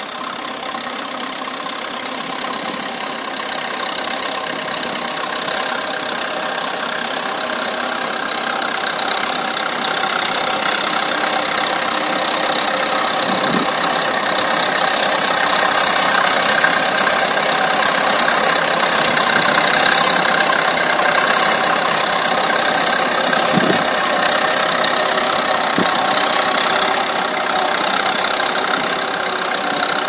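Vintage Fordson tractor's four-cylinder engine running steadily under load, pulling a plough up a slope, growing louder as the tractor comes closer. It is going well.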